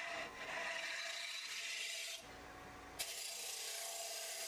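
Negative rake scraper shearing the outside of a monkey pod bowl spinning on a wood lathe: a steady scraping hiss. The hiss drops away for under a second a little past two seconds in, then comes back suddenly with a sharp click.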